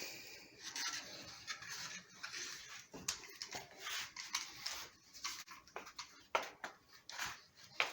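A solid-wheel screen roller tool run over new window screening, pressing it into the frame's groove: a run of raspy rolling strokes, with several sharp clicks in the second half.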